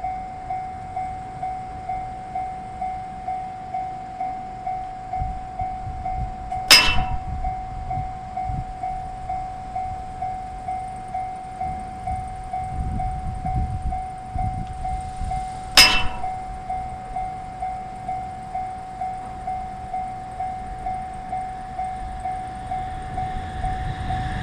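Japanese level crossing alarm ringing in a steady, even rhythm, about two strokes a second, while a train rumbles past in the middle. Two short, sharp loud sounds stand out about nine seconds apart.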